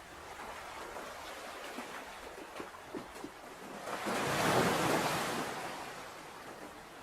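Ocean surf: a wave swells up, washes in about four seconds in and recedes, over a steady background wash of water.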